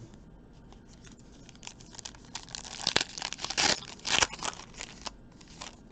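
Plastic-foil wrapper of a trading-card pack being torn open and crinkled by hand, in a run of irregular rustles and crackles that is loudest in the middle.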